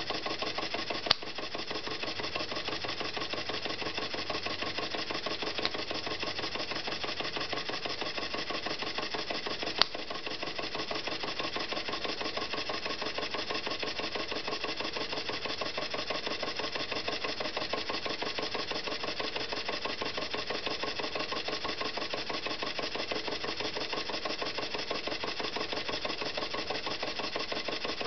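Circa-1905 Märklin 4266 model air hammer and its Märklin 4149 model steam engine, both running on compressed air: a fast, even mechanical clatter of the working engine, belt drive and hammer piston. Two sharp clicks stand out, about a second in and about ten seconds in.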